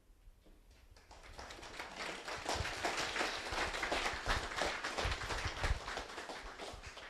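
Audience applauding: dense clapping that builds over the first couple of seconds, holds, and fades out near the end.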